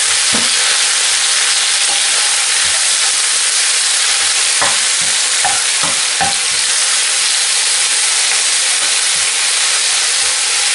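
Baby spinach sizzling in hot olive oil in a frying pan, a steady hiss throughout, as a spatula stirs the leaves, with a few knocks and scrapes of the spatula against the pan near the start and around the middle.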